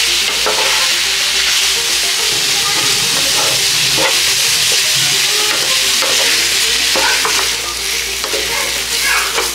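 Minced pork and prahok sizzling steadily as they are stir-fried in a nonstick pan, with a wooden spatula scraping and knocking against the pan now and then.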